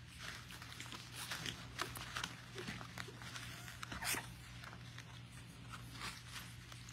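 Four-week-old puppies moving about on their bedding: faint, irregular rustling, scratching and small clicks, the sharpest about four seconds in. A steady low hum runs underneath.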